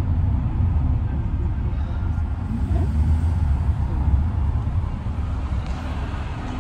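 Steady low rumble of a moving vehicle, with no sharp events.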